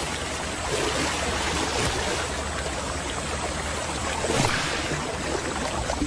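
River water rushing steadily around crocodiles feeding on a carcass in the shallows, with a few brief splashes.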